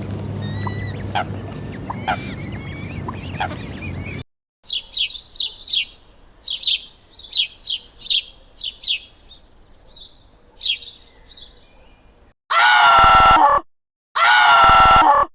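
A run of animal calls in separate clips. First comes a low steady hum with faint scattered bird chirps. Then a bird gives a string of quick falling chirps. Near the end there are two loud, drawn-out calls about a second each, from a larger animal.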